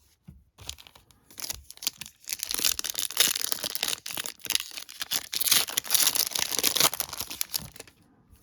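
Foil trading-card pack wrapper being torn open and crinkled. Crackling that builds after a second or two and dies away near the end.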